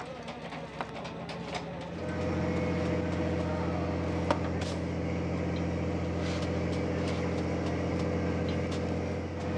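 Scattered knocks and clicks, then about two seconds in a steady, low machinery drone aboard a gillnet fishing boat comes in and holds, with a few sharp knocks over it.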